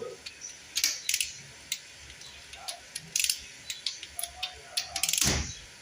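Scattered light mechanical clicks and ticks at irregular intervals, with a louder clunk about five seconds in.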